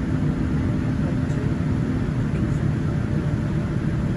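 Steady low cabin rumble of a Boeing 787-9 taxiing, heard inside the cabin next to its GE GEnx-1B engine running at low taxi power. A faint steady hum drops out a little over two seconds in.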